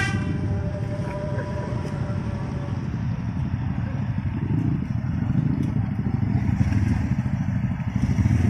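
Several Honda Tiger motorcycles idling and running together in a group, a steady low engine sound with fast exhaust pulsing.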